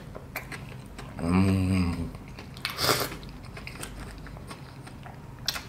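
A person chewing a mouthful of crispy fried chicken with small wet crunching clicks. A short hum of enjoyment comes about a second in, and a louder crunch near the middle.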